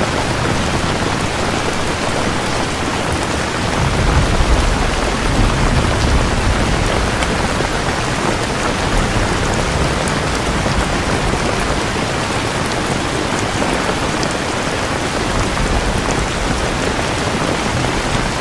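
Steady heavy rain, a dense even hiss of drops. A low rumble of thunder swells about four seconds in and fades over the next few seconds.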